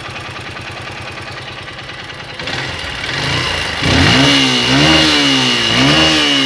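Honda XR150L single-cylinder four-stroke motorcycle engine idling steadily, then revved up and down about three times in the second half, with a steady high whine over the revs.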